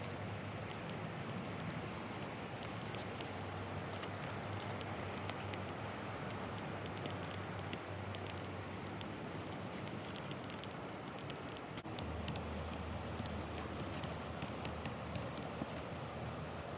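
Wood fire crackling, with many small irregular pops over a steady hiss.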